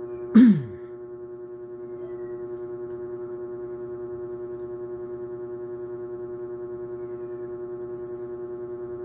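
A steady droning hum with many even overtones and a slight regular pulse. About half a second in, a short, loud sound falls in pitch.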